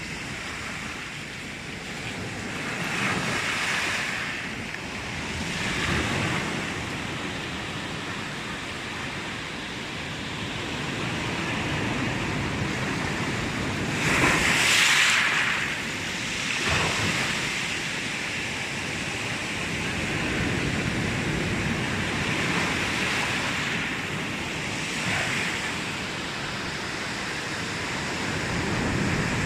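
Sea waves washing onto the shore, swelling and falling back every few seconds, with the biggest wash about halfway through.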